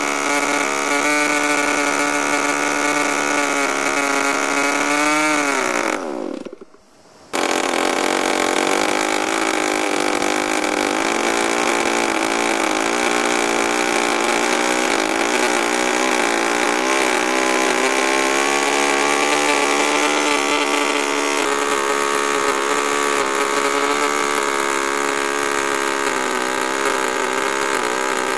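A small 9cc two-stroke gasoline model engine fired by a cold-type glow plug instead of spark ignition, running steadily at high speed. About six seconds in its pitch falls and it dies away. After a gap of about a second the engine is heard running again, its speed wavering up and down.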